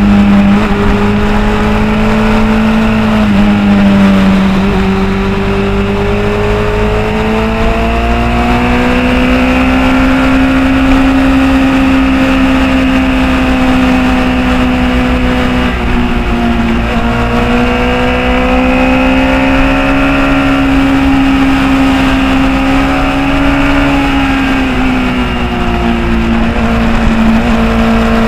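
Motorcycle engine running under way, its pitch climbing and falling several times with the throttle, with steady wind and road rush underneath.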